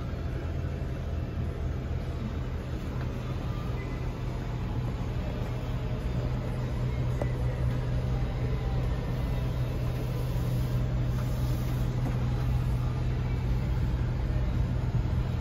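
Class A motorhome driving, heard from inside the cab: a steady low engine hum with road noise, getting a little louder about five seconds in.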